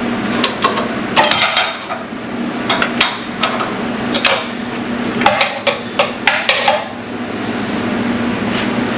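Sharp metal clanks and knocks, about a dozen at irregular intervals over the first seven seconds, from tools worked hard against a rusted, seized idler pulley bolt on a car engine. A steady low hum runs underneath.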